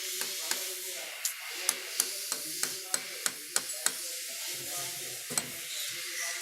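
Sharp metallic clicks and taps, two or three a second at an uneven pace, over a steady hiss: tools and small parts of a TVS Scooty Pep scooter engine being handled during assembly.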